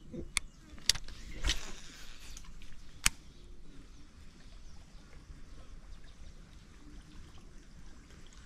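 Sharp clicks from a Daiwa Steez A TW baitcasting reel being handled, with a short whoosh of a cast about one and a half seconds in and another sharp click about three seconds in. Then only a faint steady outdoor background.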